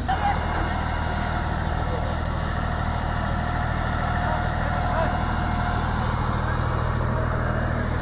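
Fire engine's motor running steadily at a wildfire, driving its pump to feed a water hose: a constant low drone.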